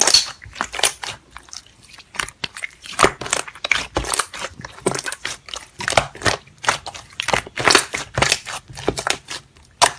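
Slime being squeezed and worked by hand, giving many quick irregular crackling clicks.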